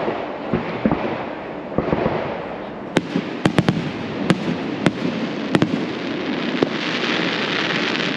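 Aerial fireworks going off: a string of sharp bangs and pops from shells launching and bursting, with a quick cluster about three to four seconds in.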